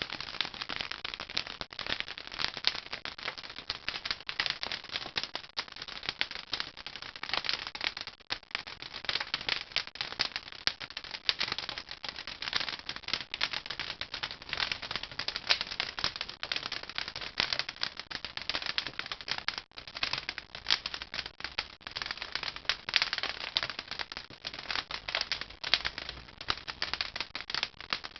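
Firewood burning in a traditional wood-fired kiln: dense, continuous crackling made of many small snaps.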